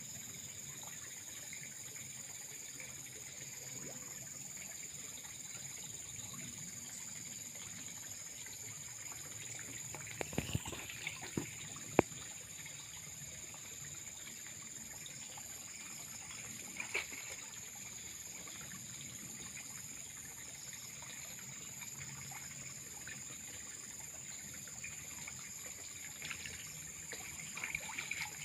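Steady trickling water in a pond, with a few short splashes and knocks as a person wades waist-deep and sweeps a hand net through the water. The loudest splashes come about ten to twelve seconds in, and again near the end.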